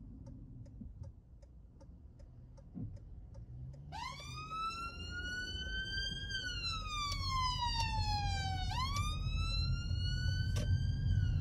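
Ambulance siren switching on about four seconds in, wailing: a quick rise, a long slow fall and a rise again, heard from inside a car over its engine and road rumble.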